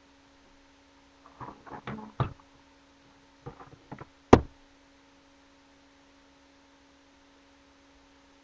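A few soft knocks and clicks from makeup items being handled close to the microphone, ending in one sharp, loud click about four seconds in. A faint steady electrical hum runs underneath.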